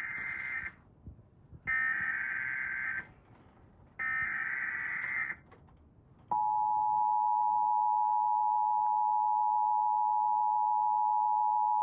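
Emergency Alert System SAME header: three bursts of harsh digital data tone, each a little over a second long and about a second apart. About six seconds in, the steady two-tone EAS attention signal begins and holds, announcing the next alert.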